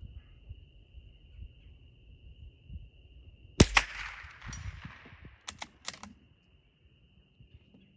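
A single .22 LR rifle shot from a bolt-action Ruger American rimfire target rifle: one sharp crack about halfway in, trailing off in a second-long echo, followed by two sharp clicks about two seconds later.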